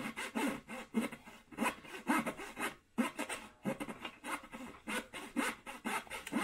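A small hand saw cutting a thin wooden stick in short, uneven back-and-forth strokes, with brief pauses about three seconds in.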